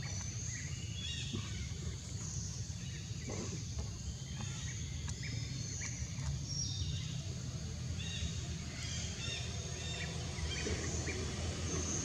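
Outdoor ambience: many short, high bird chirps scattered over a steady low rumble.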